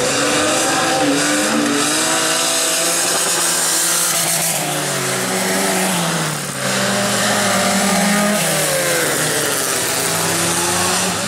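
Several bilcross race cars' engines revving hard together, their pitches rising and falling as they accelerate and change gear, with a short dip in level a little past halfway.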